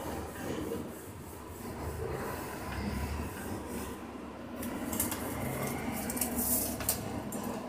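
A line being marked along the metal body of a stock motorcycle exhaust, heard as scratchy rubbing strokes, with several sharper strokes in the second half. This is the reference line drawn before the exhaust is cut.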